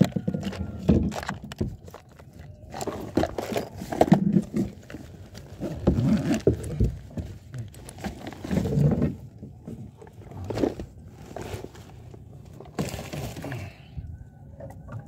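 Irregular rubbing, scrapes and knocks close to the microphone: handling noise from hands and a plastic box moving against the body-worn camera.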